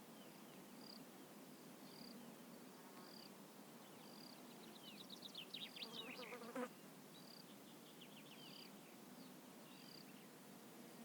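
Faint evening countryside ambience: an insect chirping a short high note at a steady pace, a little faster than once a second, over a low steady hum. About halfway through, a flurry of quick falling chirps comes in, the loudest moment, and then stops abruptly.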